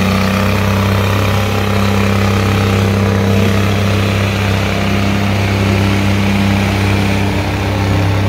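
Two tractor diesel engines, a Farmtrac and a John Deere, running hard under heavy load as they pull against each other in a tractor tug-of-war. The result is a loud, steady, low drone.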